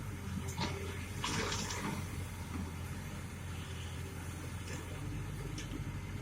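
Excavator's diesel engine running steadily, with a short burst of splashing water about a second in.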